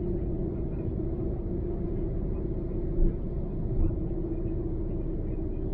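Steady rumble of a car being driven, road and engine noise with a constant low drone, and two brief thumps about three seconds and just under four seconds in.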